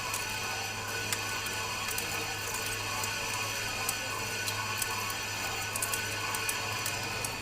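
Metal lathe running: a steady machine hum with many irregular sharp ticks over it.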